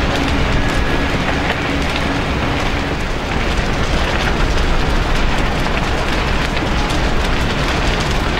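Large building fire burning fiercely: a steady rushing noise full of crackles and pops over a low rumble. A steady hum under it stops about three seconds in.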